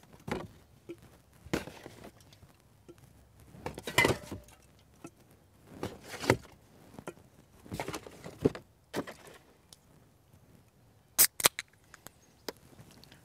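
Soda cans being taken out of a cardboard 24-pack box and set down on a wooden beam: cardboard rustling and scattered knocks and clinks of the cans, with two sharp clicks near the end.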